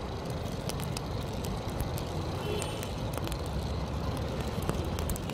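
Steady low street-traffic rumble, with many scattered sharp crackles from a burning charcoal fire roasting corn on the cob.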